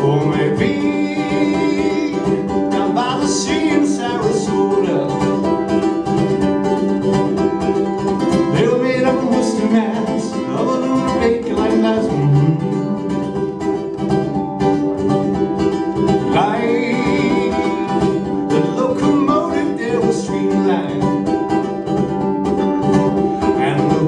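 Solo live performance: a small-bodied acoustic string instrument strummed steadily, with a man's voice singing in several phrases over it.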